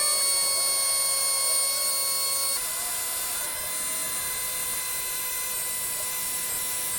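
Compact battery-powered air compressor of a LOKITHOR JP400 jump starter running steadily with a high whine while pumping up a tire. Its pitch steps down slightly about two and a half seconds in.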